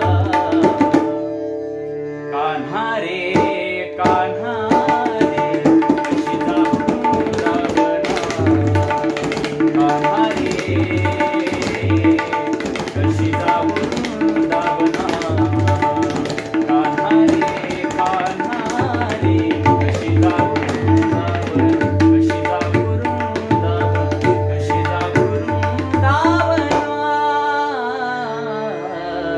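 Indian music: a tabla playing a quick, busy rhythm over a steady sustained drone. A melodic line rises and falls over it, most clearly in the first few seconds and again near the end.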